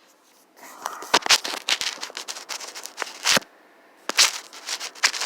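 Hard plastic and metal handling noise: a run of sharp clicks, taps and scraping starting about a second in, from working on a laptop's case and screws with a screwdriver.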